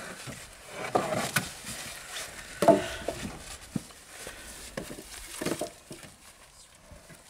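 Freshly cut round logs knocking and clunking against each other and the wooden trailer bed as they are stacked by hand, about six separate knocks.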